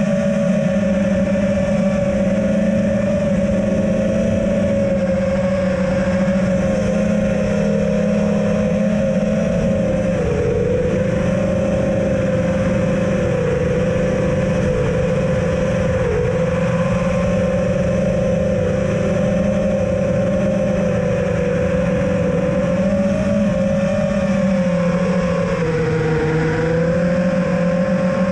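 FPV quadcopter's brushless motors and propellers whining steadily in flight, the pitch dipping briefly with throttle changes about ten seconds in, again around sixteen seconds, and for a couple of seconds near the end. The quad is built with low-KV motors on a 6S battery.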